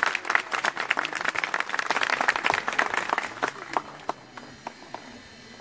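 Audience applause, dense at first and dying away to a few scattered claps by about four seconds in, with voices murmuring in the crowd.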